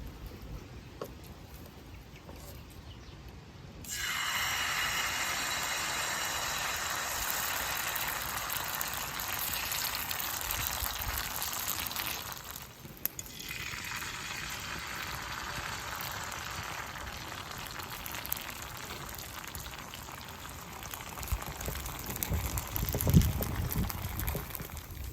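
Mullu murungai leaf adai frying in hot oil: a loud, steady sizzle starts suddenly about four seconds in. It drops out briefly near the middle and then carries on. A few low knocks come near the end.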